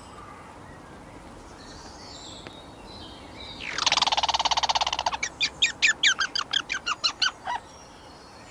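A bird calling: a loud, fast rattling trill for about a second and a half, then a run of short, sharp notes at about six a second for over two seconds.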